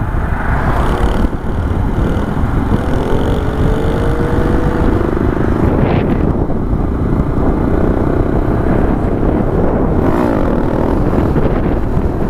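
Motorcycle running along at road speed, heard from on the bike, with heavy wind rumble over the microphone. The engine note climbs a little about three seconds in.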